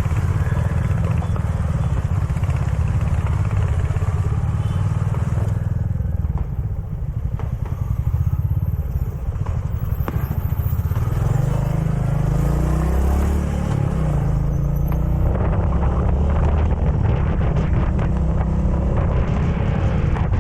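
Royal Enfield Meteor 350's single-cylinder engine running while riding, with road noise; about two-thirds of the way through, the engine pitch rises and falls as the rider works the throttle.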